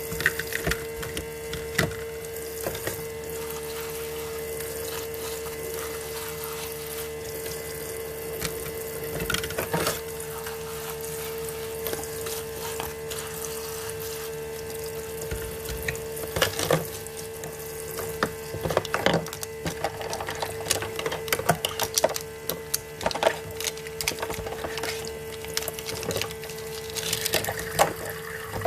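Miniature toy kitchen tap running real water, with the steady hum of its small water pump. Light plastic clicks and taps from handling the toy pieces, more frequent in the second half.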